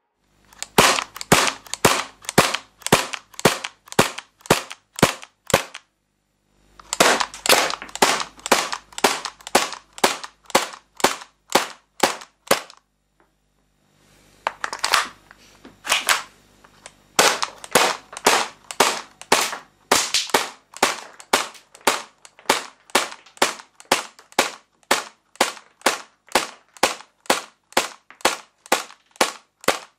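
Tanio Koba VP70 airsoft pistol firing over and over: sharp cracks about three a second, in three runs broken by short pauses after about five and about twelve seconds.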